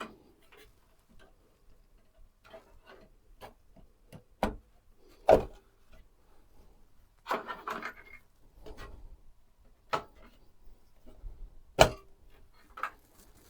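Hands working on a desktop PC build: scattered sharp clicks and knocks of parts being handled and fitted, with bursts of rustling in between. The loudest knock comes about five seconds in and another near the end.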